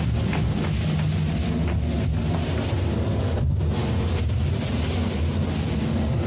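Loud steady electronic noise drone played over loudspeakers in a sound-art performance: a dense hiss over a deep low hum. The hiss thins out briefly about three and a half seconds in.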